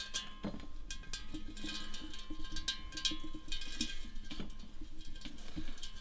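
Thin decorative wire being wound around a glass vase: scattered light clicks and ticks of wire touching the glass and being handled, over soft background music.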